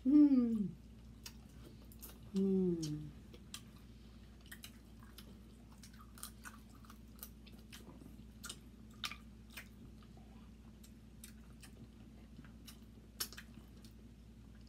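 Close-up mouth sounds of people eating boiled seafood such as crab and shrimp: scattered wet smacks and small clicks. There are two short falling hums in the first three seconds.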